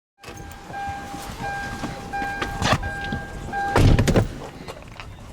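An electronic beeping tone, broken into several runs, with a sharp knock just under three seconds in and a heavy thunk about four seconds in.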